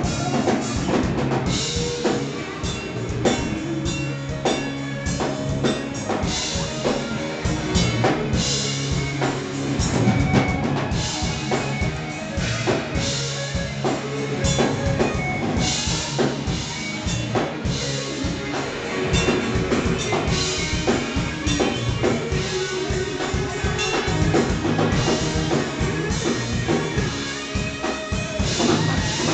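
Live rock band playing: electric guitars and electric bass over a steadily beating drum kit.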